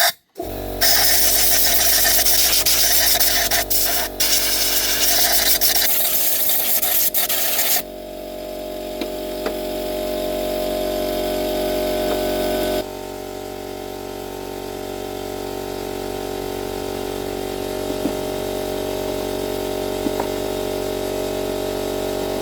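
A handheld power tool working against a workpiece: a loud rasping hiss at first, then after about eight seconds a steadier running sound with a humming tone.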